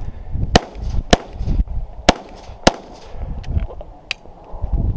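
Semi-automatic pistol firing four loud shots in the first three seconds, each a sharp crack with a short echo, at uneven gaps of half a second to a second. A few fainter sharp cracks follow.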